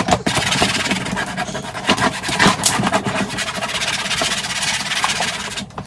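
Slime being squeezed, stretched and pressed by hand, making a dense, continuous crackling full of small clicks that stops abruptly near the end.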